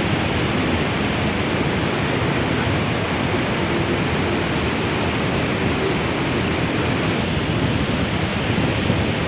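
Steady rush of a river in spate pouring over rocks and a weir: an even, unbroken roar of water.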